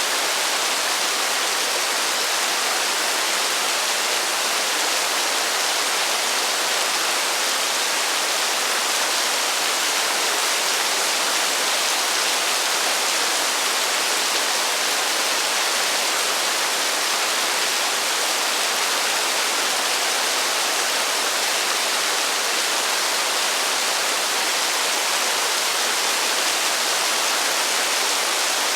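Heavy rain falling as a steady, even hiss, with no thunder and no single drops standing out.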